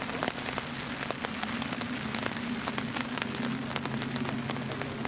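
Steady rain with many close drops pattering on an umbrella just above the microphone.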